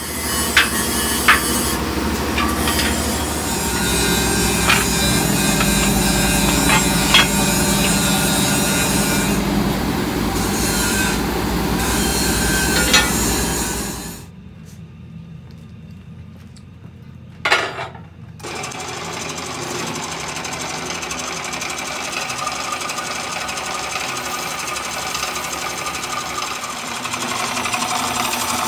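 Metalworking machines running: a press hums steadily, with a few sharp metal clanks as steel pieces are fed into its die. After a short quieter spell with one knock, a drill press bores through the centre of a steel tractor wheel, a steady machine drone with coolant being poured on.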